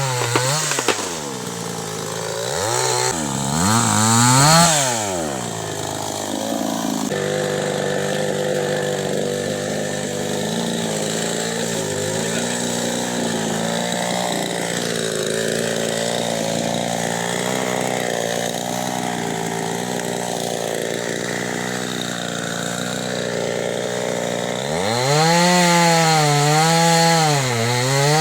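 Chainsaw engine revving up and down in the first few seconds, then running at a steady pitch for most of the stretch. Near the end it is revved up and down several times.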